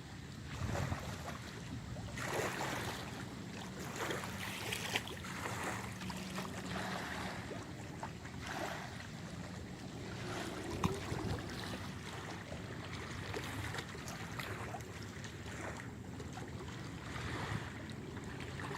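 Surf washing onto a beach, with the noise swelling and fading every couple of seconds under a steady low rumble. There is one sharp click about eleven seconds in.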